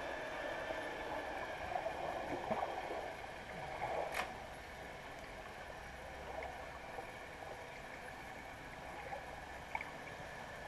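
Muffled underwater ambience heard through an action camera's waterproof housing: a steady watery hiss with soft gurgles and crackles. One sharp click comes about four seconds in.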